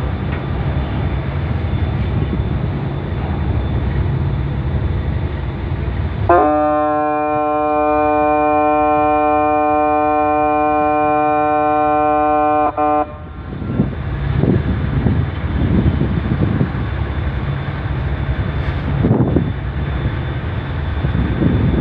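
Ship's horn giving one long, steady blast of about six and a half seconds, starting about six seconds in and cutting off abruptly, over a steady low rumble.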